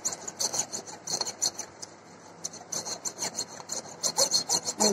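Steel kitchen knife blade scraped back and forth over the unglazed rim of an upturned ceramic plate, a run of quick rasping strokes with a brief lull about two seconds in. The blade is being ground to sharpen its dull edge.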